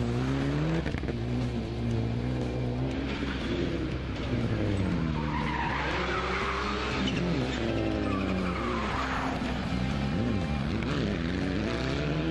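Rally cars powering through a loose-gravel corner one after another, their engines revving up and down through gear changes. Tyres slide and scatter gravel, loudest in the middle.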